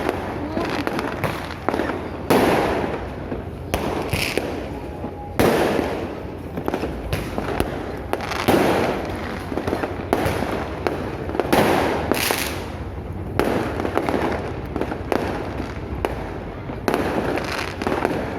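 Fireworks display: shells bursting one after another every second or few, each a sudden bang followed by crackling, with crackling continuing between the bangs.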